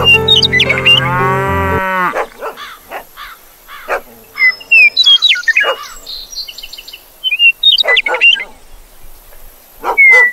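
A cow moos once in a long, low call that bends down and stops about two seconds in. Short, high bird chirps follow on and off for the rest of the time.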